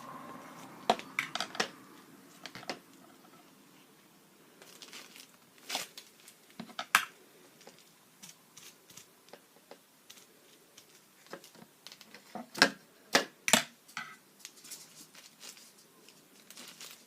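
Plastic bubble wrap being handled and pressed onto paint, giving scattered sharp crinkles and clicks, with a few louder snaps about two-thirds of the way through.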